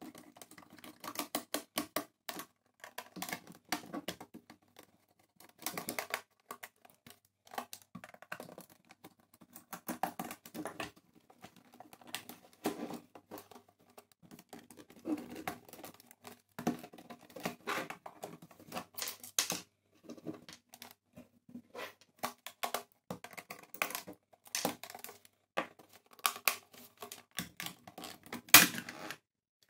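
Screwdriver working screws out of a plastic landline telephone base while the housing is handled, giving irregular clicks, scrapes and plastic rattles. A sharp knock near the end.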